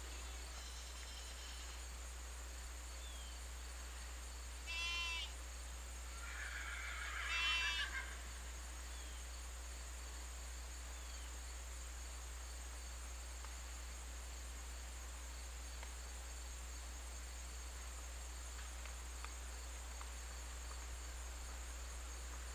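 Puppy whining twice: a short high call about five seconds in, then a longer, louder one about seven seconds in, over a steady low hum.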